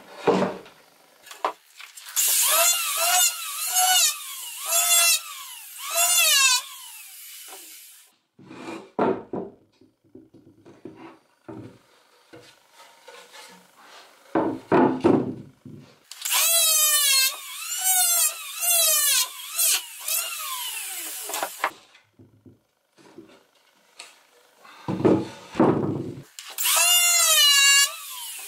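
Electric hand planer cutting across a wooden slab in three spells of repeated strokes, the motor's pitch dipping and recovering about once a second as each pass loads it. Between the spells come a few thuds of the board being handled on the bench.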